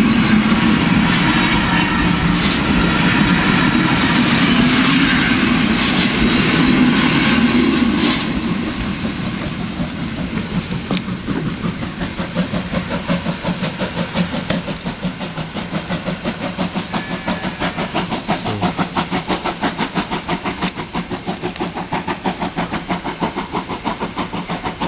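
Passenger coaches of a steam-hauled train rolling past close by with a heavy rumble. About eight seconds in the last coach clears, and the steam locomotive's exhaust beats take over as a steady rhythmic chuffing, about four beats a second, slowly growing fainter as the train draws away.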